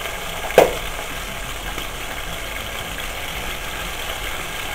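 Chicken breast fillets frying in oil in a saucepan: a steady sizzle, with one short knock about half a second in.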